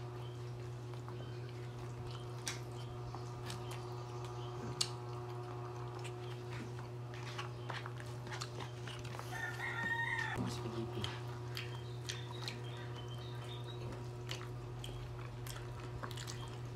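Eating at a table: short clicks and taps of plastic forks on paper food boxes, with bites and chewing, over a steady electrical hum. A brief high-pitched call cuts in a little under halfway through.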